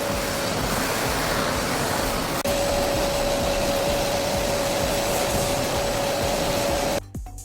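Steady machine noise, a loud even whir with a steady mid-pitched whine, which drops out briefly about two and a half seconds in and stops abruptly near the end.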